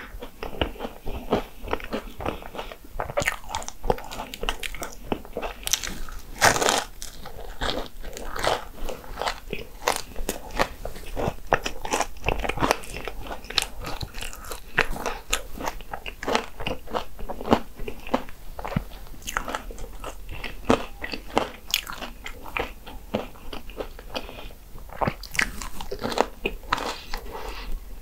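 A person biting and chewing Hong Kong egg waffle: a dense run of short crisp bites and chewing clicks, with one especially loud bite about six and a half seconds in.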